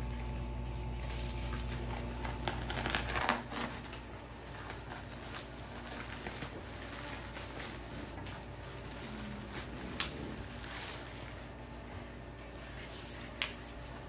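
A steady low hum for the first few seconds, then a thin plastic bag rustling and crinkling as it is opened and rummaged through by hand. Two sharp clicks come near the end.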